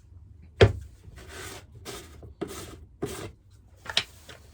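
A sharp knock, then several short scraping strokes about half a second apart and a click near the end, as clay pieces and pottery tools are handled on a workbench.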